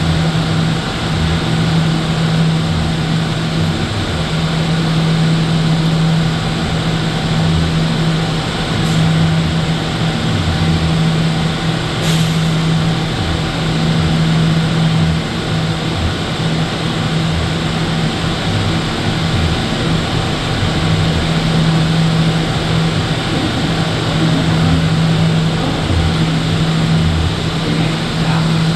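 HVAC unit of a New York City Subway R179 car running: a steady rush of blower air with a strong low hum that drops out briefly every few seconds.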